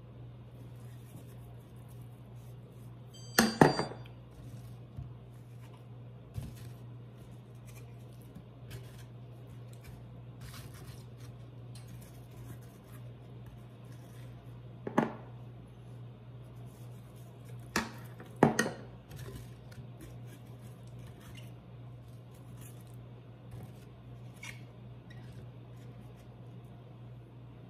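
Kitchen handling sounds while a raw turkey is seasoned and stuffed with apples in a metal roasting pan: a few sharp clinks and knocks of bowls and pan, loudest about three and a half seconds in and again around fifteen and eighteen seconds, with fainter ticks of handling between. A steady low hum runs underneath.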